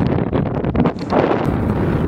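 Strong wind buffeting the camera microphone, a loud, low rumble. About one and a half seconds in the sound changes abruptly to a thinner, hissier wind noise.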